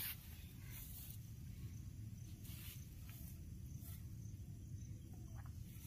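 Quiet outdoor ambience: a steady low rumble with faint, high insect chirps coming and going.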